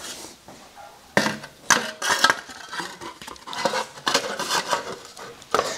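Small metal parts and tools clinking and knocking as they are handled, in several short clusters: about a second in, around two seconds, and around four seconds.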